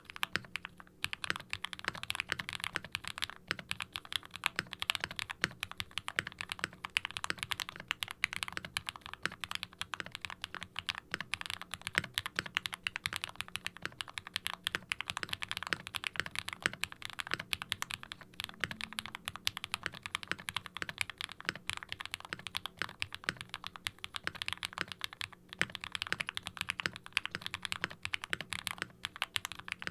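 Steady fast typing on a KBDfans Tofu60 mechanical keyboard fitted with custom linear Gateron 'Phantom' frankenswitches (nylon bottom housings, polycarbonate tops, UHMWPE stems) on an FR4 plate with foam dampening, giving a soft, muted clacky sound on each bottom-out.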